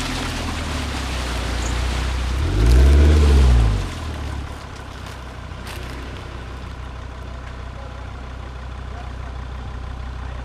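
Jeep Grand Cherokee's engine revving hard once in deep mud, its pitch rising and falling about three seconds in, then dropping back to a steady, quieter run. The driver is trying to power through the ruts, where the Jeep bogs down.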